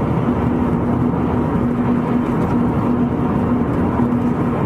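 Steady road noise inside a vehicle's cabin while driving: a constant low engine drone with a steady hum, and tyre rumble.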